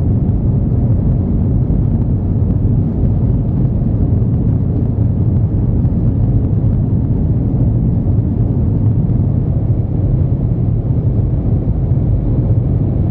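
Steady low rumble inside the cabin of an Airbus A321 climbing after takeoff: jet engine and airflow noise, even in loudness.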